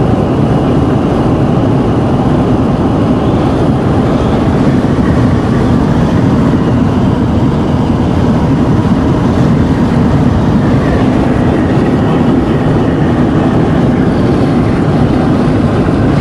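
Strong wind buffeting the vehicle, heard from inside the cabin as a steady, loud, low rushing noise.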